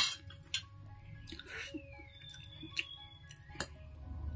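Metal fork clinking against a ceramic plate while picking up chow mein noodles: one sharp clink at the start, then a few lighter clinks, with soft chewing and wet mouth sounds in between.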